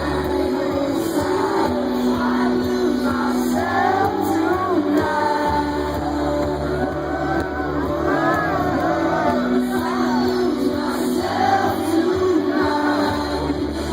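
Live band playing a song with a singer over steady bass notes.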